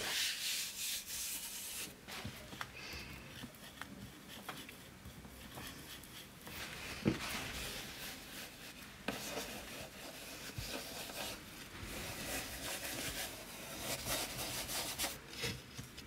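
A hand rubbing across an inked copper etching plate, wiping it for printing: uneven dry rubbing strokes with a few light clicks.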